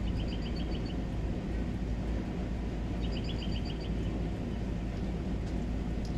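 A songbird repeating a short, quick trill of about seven high notes, once near the start and again about three seconds in, over a steady low rumble.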